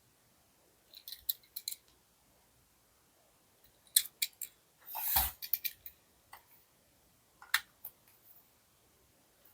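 Plastic blister packaging of a diecast toy car being handled and opened: scattered clicks and crackles in three short clusters, with a louder thud about five seconds in.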